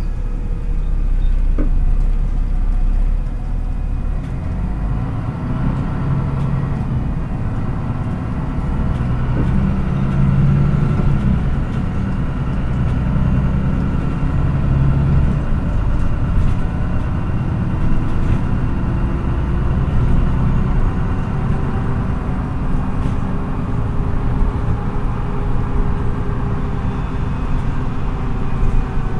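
MAN NÜ 313 city bus engine running under way, heard from inside the bus, its pitch rising and falling with changes in speed.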